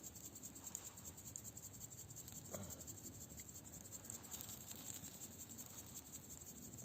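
Faint chirping of insects, a rapid, even, high-pitched pulse, with a single soft knock about two and a half seconds in.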